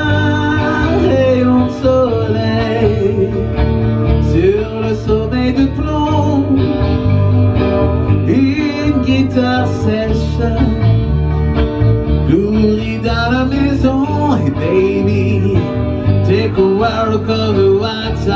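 Music: a song with guitar and singing over a steady bass line.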